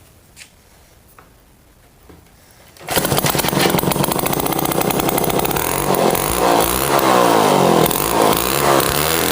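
McCulloch 5-49 two-man chainsaw's 130 cc two-stroke engine catching suddenly about three seconds in, after a few faint clicks, and then running loudly, its speed rising and falling.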